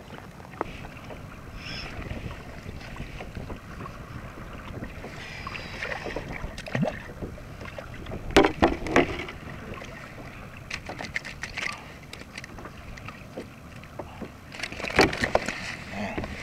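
Wind on the microphone and water moving against a plastic sit-on-top kayak at sea, with clusters of sharp knocks about eight seconds in and again near the end.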